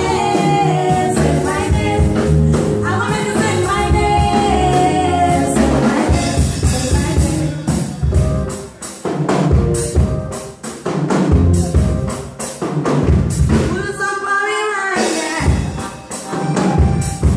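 Live band rehearsing a song: two singers over bass guitar, keyboards and drums. After about six seconds the voices mostly drop out and the band plays on with sharp drum hits, with singing returning briefly near the end.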